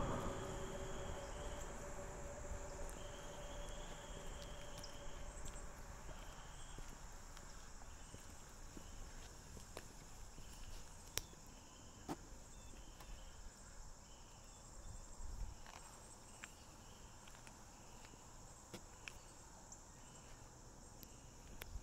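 Insects chirping: a steady high buzz with short chirps repeating on and off. A faint low hum fades away in the first few seconds.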